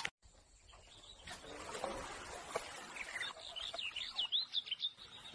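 A small bird chirping in a quick run of short high chirps, starting a little past halfway, over quiet outdoor background noise.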